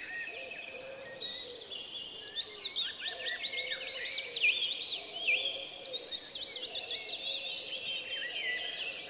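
Many small birds chirping and twittering together: a dense, steady stream of quick, high chirps.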